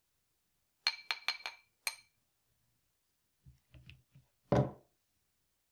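A stainless-steel wire whisk head tapped against the rim of a glass bowl: four quick ringing clinks and one more shortly after, with the mixer's motor switched off. A few soft knocks and a louder dull thud follow as the mixer is laid down on the wooden table.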